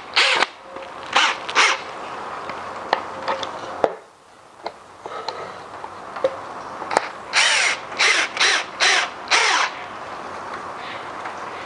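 Harsh, repeated bird calls: three short calls near the start, then a run of five evenly spaced calls about seven seconds in.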